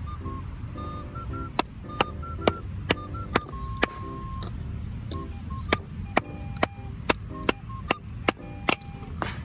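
Firewood being split by batoning: a wooden baton striking the spine of a knife driven into the wood, about fourteen sharp knocks at roughly two a second in two runs with a short pause between, over background music.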